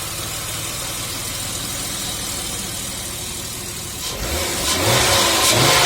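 BMW M50B25 inline-six idling warm, then revved up about four seconds in, the note rising and getting louder. It is being run to pump up hydraulic lifters that tick when the engine is hot.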